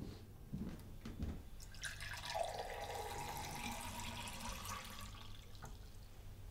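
Kitchen mixer tap running water into a drinking glass for about three seconds, then turned off.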